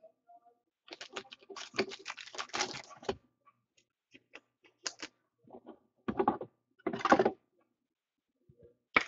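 Typing on a computer keyboard: a quick run of key clicks for about two seconds, then scattered single clicks and two short louder bursts of keystrokes.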